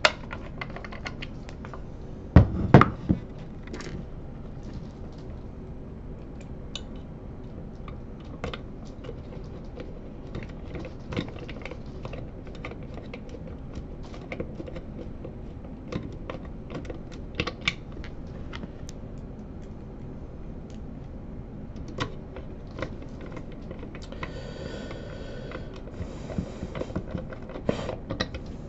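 Small scattered clicks and taps from a screwdriver and hands working on a Bausch & Lomb StereoZoom 7 microscope body during reassembly, with a louder clunk a couple of seconds in and a brief scrape a few seconds before the end.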